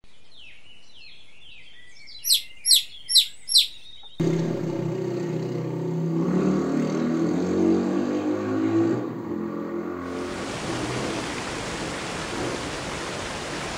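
Chicks peeping, with four loud, high, falling peeps about two to three seconds in. It then cuts abruptly to a motorcycle engine running on a dirt track, followed in the last few seconds by a steady rushing noise.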